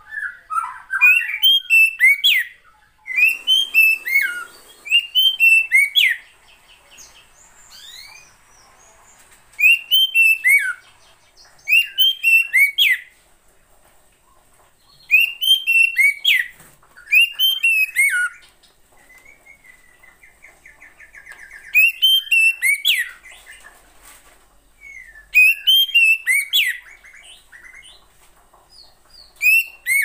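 Female oriental magpie-robin calling: short phrases of quick, down-slurred whistled notes, given in bursts of a second or two with pauses between. A drawn-out harsh buzzing note comes about twenty seconds in.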